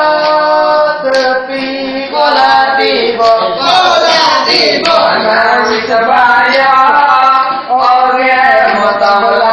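A group of children singing a song together, in phrases of held notes with brief breaks between them.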